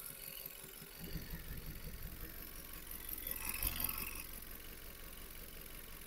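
Vauxhall Astra 1.4 turbo engine idling with the bonnet open, heard faintly, with a low rumble that strengthens about a second in. The engine is misfiring (code P0300) and pushing out a mixture of coolant and oil fumes.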